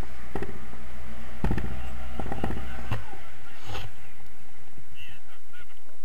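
Wind buffeting the microphone of a camera carried on a paraglider in flight, easing after about three seconds, with a few short shouts.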